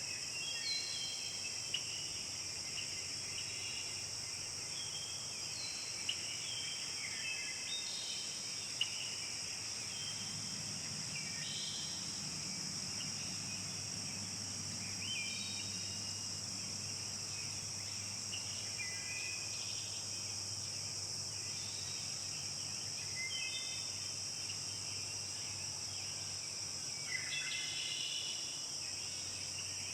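Forest ambience: a steady high-pitched chorus of insects, with birds singing short chirps and whistles over it throughout.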